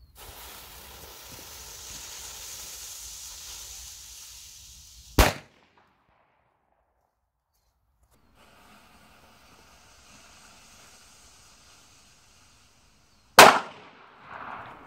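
A firecracker fuse hisses as it burns for about five seconds, then the firecracker goes off with a single sharp bang. After a pause a second fuse hisses more faintly, and a second firecracker bangs near the end, followed by a brief softer tail.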